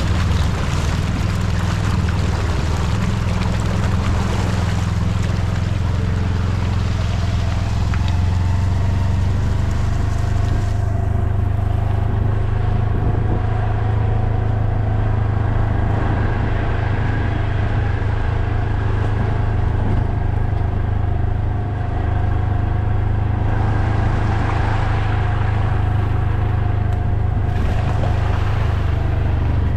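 A vehicle's engine running steadily under way, a loud low hum with steady tones above it. A rushing hiss rides over it for the first third and largely falls away about eleven seconds in.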